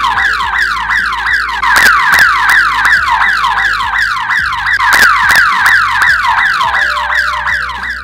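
Loud horn siren of a long-range wireless panic alarm's receiver unit, set off by a panic button press. It sounds as a fast repeating falling whoop, about three or four sweeps a second from high to lower pitch.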